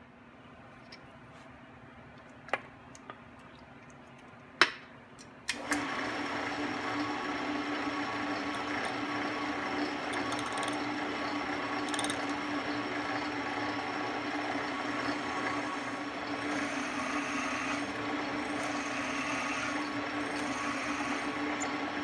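A few sharp knocks, the loudest about four and a half seconds in, then a benchtop drill press starts about five and a half seconds in and runs steadily with a low hum. Its number 7 bit drills tap holes into a solid aluminum block.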